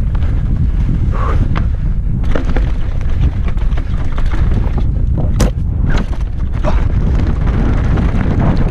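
Mountain bike descending a rough downhill trail, heard from a helmet camera: a steady wind rumble on the microphone with sharp knocks and rattles from the bike hitting rocks and roots, several close together about five to six seconds in.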